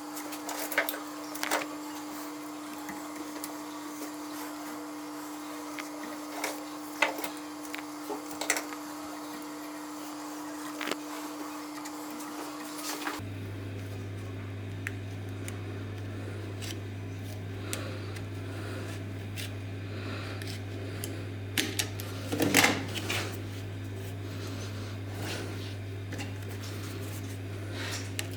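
A steady low hum with scattered light taps and knocks. About 13 seconds in the hum changes to a lower pitch, and a few louder knocks come near the end.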